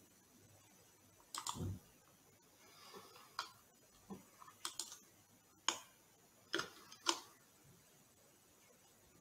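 Scattered clicks and taps of a computer mouse and keyboard, about eight at irregular intervals.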